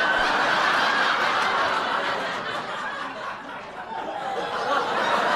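Studio audience laughing, a dense wash of many people's laughter that eases a little in the middle and builds again near the end.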